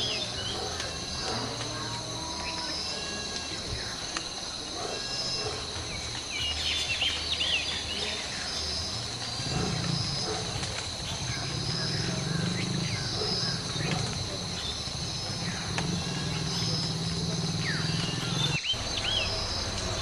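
Birds chirping in short, high calls scattered through a fruiting fig tree, over a steady high insect-like drone and a low hum. A single sharp click comes near the end.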